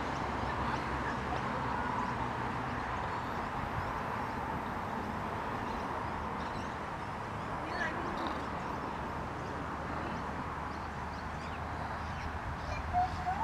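Steady outdoor background noise with faint, scattered short calls and a brief rising call near the end.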